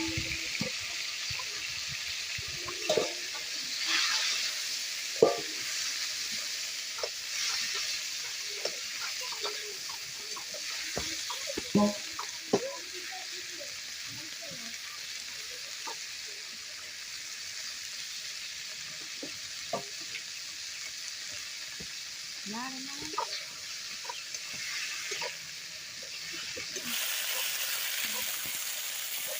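Food frying in hot oil in a pan, a steady sizzle, with a utensil stirring and knocking against the pan now and then.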